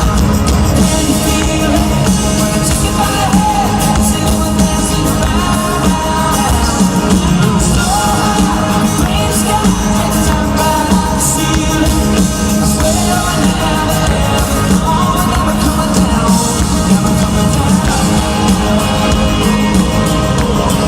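Live band playing a loud rock song in an arena, heard from the audience, with a singing voice over it and the crowd shouting and yelling.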